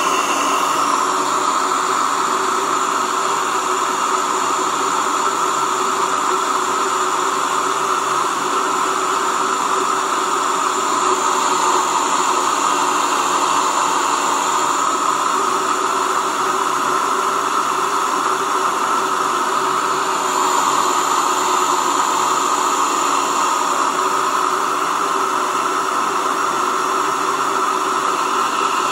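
Waldner BioTech Single electric grain mill running steadily as it grinds millet into flour.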